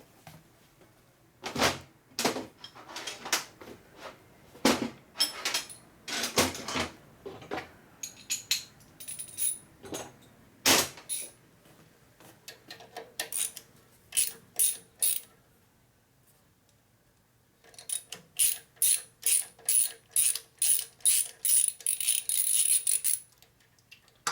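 Ratchet wrench clicking as a nut on the starter wiring terminal is worked, with scattered clicks and knocks of handling tools and parts. Near the end comes a quick regular run of ratchet clicks, about three a second.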